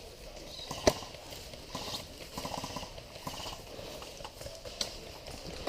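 Irregular light knocks and rustling, with one sharp, loud click about a second in.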